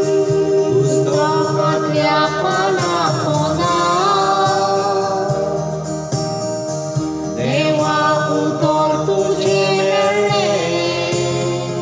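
A Konkani hymn sung over held electronic keyboard chords: one sung line about a second in, and a second line starting about seven seconds in.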